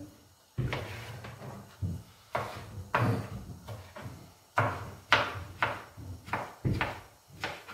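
Kitchen knife chopping vegetables on a wooden cutting board: a dozen or so irregular knocks, coming faster in the second half.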